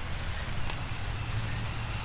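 Faint rustling and crinkling of PVC pipe-wrap tape being pressed and smoothed by hand, over a steady low hum that grows a little near the end.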